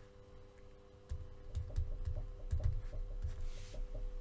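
Stylus tapping and scratching on a drawing tablet as a word is handwritten: a run of small irregular clicks with low knocks, over a faint steady hum.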